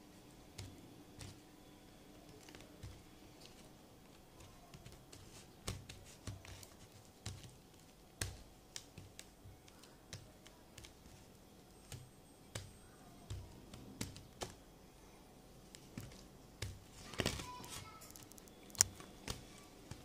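Pink fluffy slime made of glue and shaving foam being squeezed and kneaded by hand on a plastic plate: irregular small clicks and wet pops as air pockets burst, with a louder run of crackles near the end.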